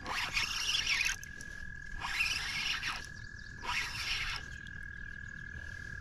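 Spinning reel cranked in three short bursts of about a second each while a hooked smallmouth bass pulls on the line.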